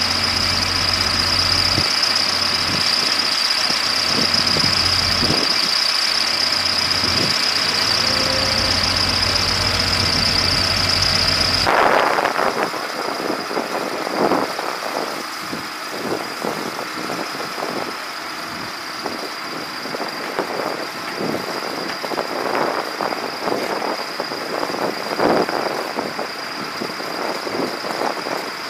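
An engine runs steadily with a high, even whine. About twelve seconds in the sound cuts to a quieter engine bed under repeated irregular scrapes and knocks of shovels working wet gravel and fill in the repair pit.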